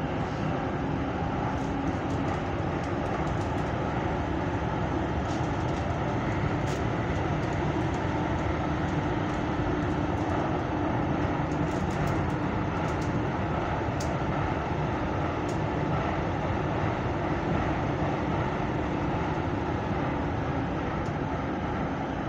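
Copenhagen Metro train running through its tunnel, heard from inside the passenger car: a steady rumble with a constant low hum beneath it and a few faint clicks.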